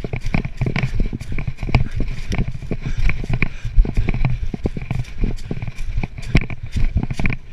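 Rapid, irregular knocks and rustling handling noise from a camera being carried while someone runs, with the thud of footfalls.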